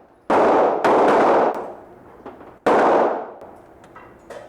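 Three gunshots: two close together, about half a second apart near the start, and a third about two seconds later. Each is a sharp crack with a fading tail.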